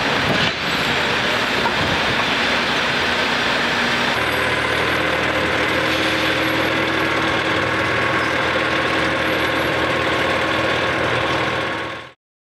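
Steady engine noise from ground handling of a helicopter. A low hum and a steady tone join in about four seconds in, and the sound cuts off abruptly near the end.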